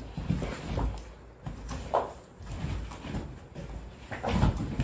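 Irregular rustling and soft knocks of a cardboard shipping box and its packed contents being handled and pulled out. There is a sharper rustle about two seconds in, and the handling grows louder near the end.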